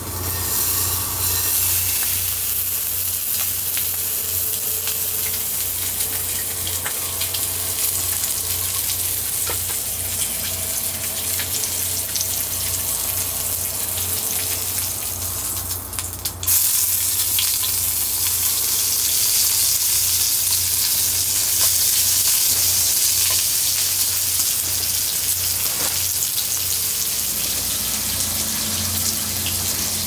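Thick slab of pork belly sizzling in a small non-stick frying pan, with scattered small pops in the steady hiss. About halfway through the sizzle drops away for a moment and comes back louder, over a low steady hum.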